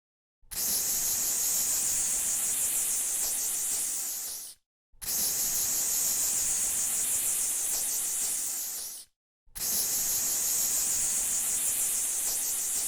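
Aerosol can of cockroach insecticide with a narrow nozzle, sprayed in three long bursts of about four seconds each, with short breaks between them; each burst is a steady high hiss that tails off slightly before it cuts off.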